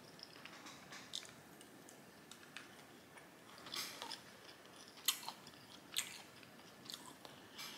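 Close-up mouth sounds of someone chewing food: soft wet chewing with scattered sharp lip-smacking clicks, the loudest about four, five and six seconds in.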